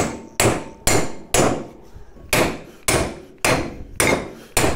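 Hammer blows on a socket, driving the old rear wheel bearing's outer race out of a Nissan Micra K12 brake drum: about nine hard metal strikes, roughly two a second, each ringing briefly, with a pause of about a second near the middle.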